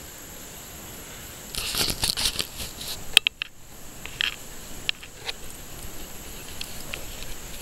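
A dog chewing and mouthing a Chuckit Flying Squirrel toy: a burst of crinkling and crunching from about one and a half seconds in, ending in a sharp click, then scattered single clicks.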